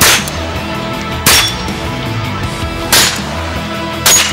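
Four single shots from a small-bore rifle, spaced unevenly about a second to a second and a half apart, over background music.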